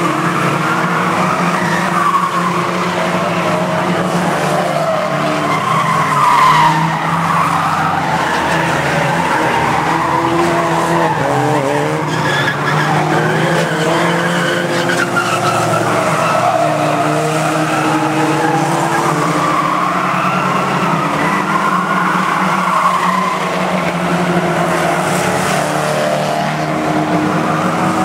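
A pack of banger-racing saloon cars running together around an oval track, several engines revving and overlapping at once, with tyres squealing and skidding through the corners.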